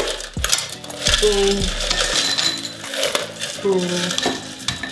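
Ice cubes dropped by hand into drinking glasses, clinking against the glass and each other in several sharp clicks, most of them in the first second and near the end.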